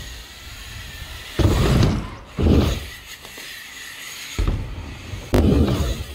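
BMX bike riding the ramps: tyres landing and rolling across the ramp surfaces in several loud passes, with a sharp knock a little after five seconds in.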